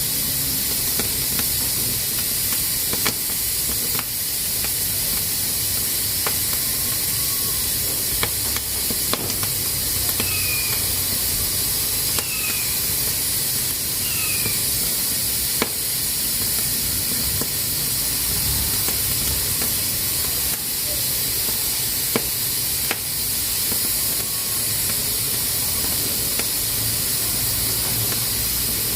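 Pressure cooker hissing steadily as steam escapes through its valve, with a few sharp clicks scattered through.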